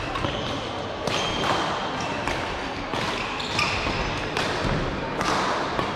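Racket-sport rally in an indoor hall: a run of sharp hits, one about every second or less, with shoes squeaking on the court floor in between.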